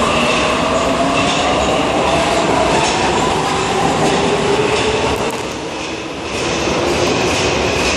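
Budapest M3 metro train pulling out of the station and accelerating away: its motors whine upward in pitch over the rumble and clatter of the wheels on the rails. The sound dips briefly about three-quarters of the way through as the train heads into the tunnel.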